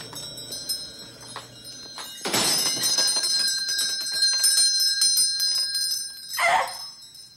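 Small hanging shop-door bell on a spring, swinging and ringing: a few light tings, then a loud jangle about two seconds in. The ring holds, and there is another jangle near the end.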